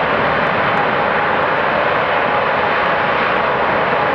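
Boeing 747-8i's four GEnx jet engines running at high power as the airliner rolls down the runway: a loud, steady rush of jet noise with a faint steady whine over it.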